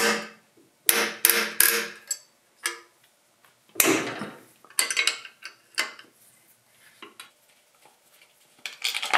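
Wrench and loose steel engine parts clinking and clanking as bolts and brackets are worked off a tractor's alternator and fan: an irregular string of sharp metallic knocks, several with a short ring.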